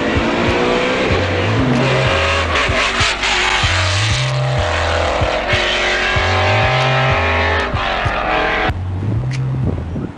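Muscle cars racing past, engines revving hard and climbing in pitch through the gears. A heavy, repeating music bass line plays underneath.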